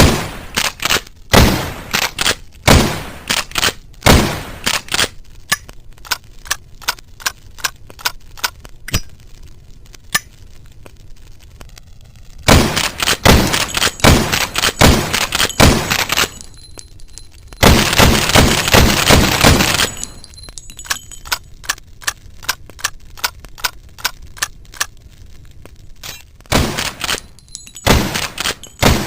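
Sawed-off lever-action rifle shots, sharp reports each followed by a short ringing tail, about one every second and a half at first, with lighter clicks between them. A quicker run of shots comes about a third of the way in, and past the middle there is about two seconds of continuous rushing noise.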